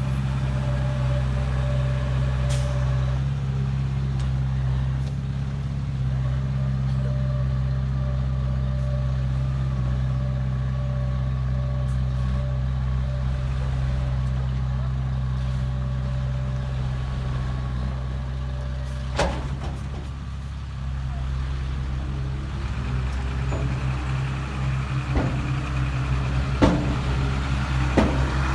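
Heavy diesel engine of earthmoving machinery running steadily at a constant speed, with a few sharp metallic clunks near the end.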